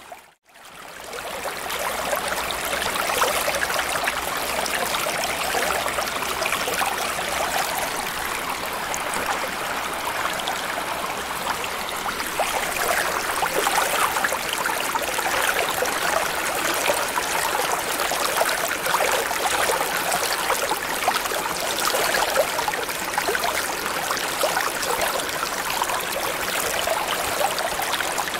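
Steady bubbling, trickling water ambience: a dense fizz of small crackles and gurgles. It drops out briefly near the start and fades back up within a second or two, then runs on evenly.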